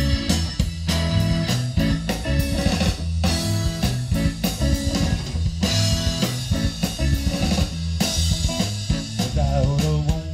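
Live blues band playing an instrumental passage: electric guitars and a drum kit over bass, with no singing.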